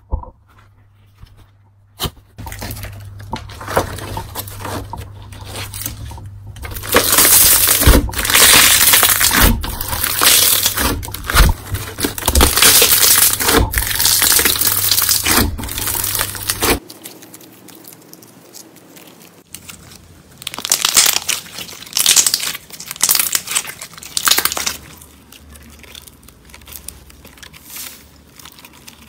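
Hands squeezing, kneading and stretching slime, with sticky crackling and popping, loudest through the middle of the first half. After a sudden change partway through, the squishing is quieter, with short louder bursts of popping.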